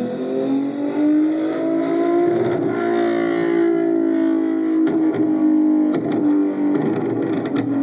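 A car engine revving, its pitch rising over the first few seconds and then holding steady, cut off abruptly at the end.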